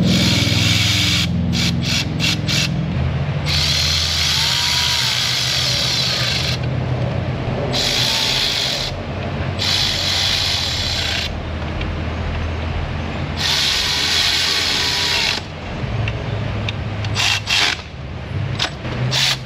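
Power ratchet spinning bolts in, in repeated bursts: a few short ones, then several longer runs of one to three seconds, then quick blips near the end. A steady low hum lies underneath.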